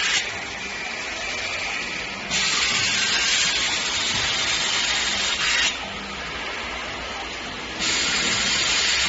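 Air hissing from an automatic screen printing machine's pneumatic system. It cuts out twice for about two seconds, in step with the machine's cycle, over a low machine rumble.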